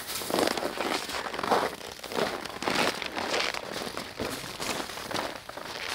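Footsteps crunching in packed snow, a steady walking rhythm of short crunches about every half second.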